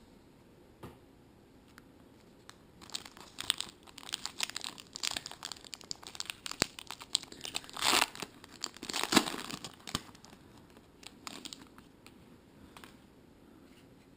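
Trading card pack wrapper crinkling and being torn open: a busy run of crackles and rips that begins a few seconds in, with two loudest tearing rips just past the middle, then dies away.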